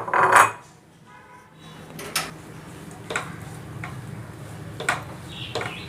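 A spatula knocking and scraping against a pan while chopped onions are stirred in hot oil. A loud clatter comes at the start, then single sharp knocks every second or so, over a steady low hum.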